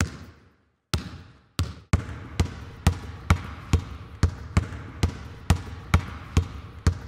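A basketball being dribbled: a few uneven bounces at first, then a steady dribble of about two bounces a second.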